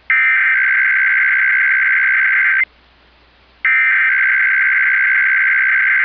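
Emergency Alert System SAME header: two identical bursts of digital data tones, each about two and a half seconds long, a second apart. The bursts encode a required weekly test alert.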